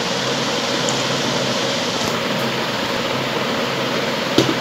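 Steady hiss with a low hum, and one short knock near the end.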